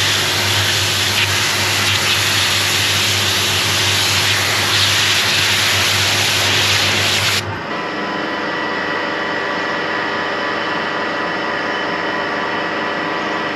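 Diesel-heated hot-wash pressure washer jetting hot water and steam onto a steel queen excluder: a loud steady hiss over a low hum. About seven and a half seconds in the spray cuts off abruptly, leaving a quieter steady machine hum with several steady tones.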